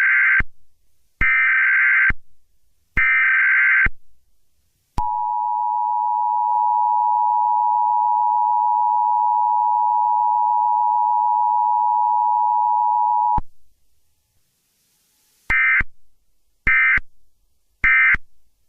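Emergency Alert System tones: three short data bursts of the SAME header about a second apart, then the two-tone attention signal (853 and 960 Hz) held steady for about eight seconds, then three shorter end-of-message data bursts.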